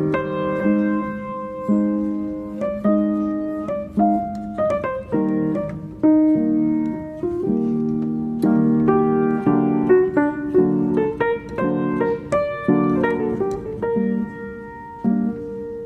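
Background piano music: a gentle melody of struck notes and chords, each note starting sharply and fading.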